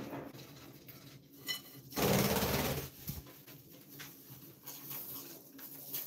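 Budgerigars feeding on a concrete floor: light pecking clicks and a few short, faint chirps. About two seconds in comes a loud rushing noise lasting just under a second.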